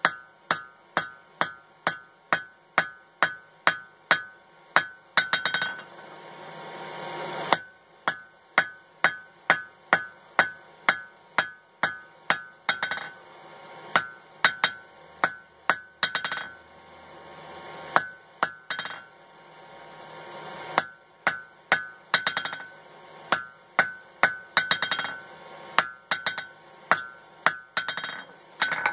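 Hand hammer striking hot coil-spring steel on an anvil, forging a punch shank to eight sides. The blows come in runs of about three a second with short pauses between, and each blow leaves a brief ring from the anvil.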